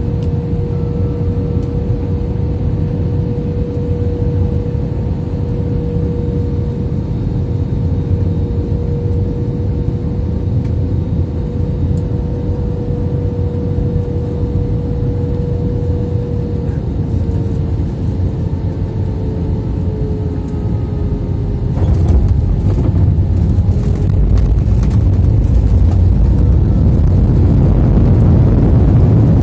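Jet airliner heard from inside the cabin on final approach and landing: steady engine drone with a high hum that drifts slightly lower. About 22 seconds in the wheels touch down with a few knocks and the sound becomes a louder runway rumble, swelling further near the end.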